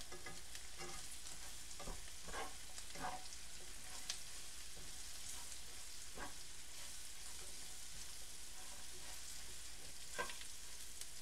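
Pre-fried beef strips frying with sautéed onions and masala in a pan, a faint steady sizzle, being stirred, with a few short scrapes scattered through.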